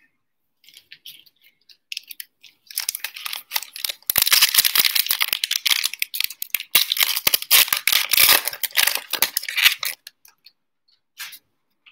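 Plastic wrapper of a 2020 Donruss football trading-card pack being torn open and crinkled. A few faint rustles come first, then about three seconds in a dense crackling that lasts until shortly before the end.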